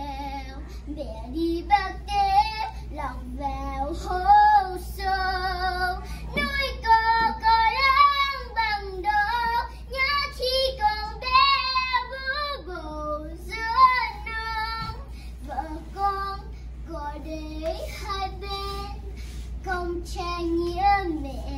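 A young girl singing a Vietnamese song solo, with long held notes that waver in pitch.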